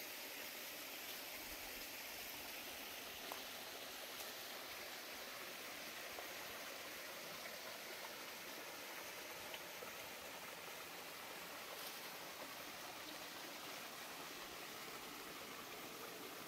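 A small mountain stream running over rocks: a steady, even rush of water.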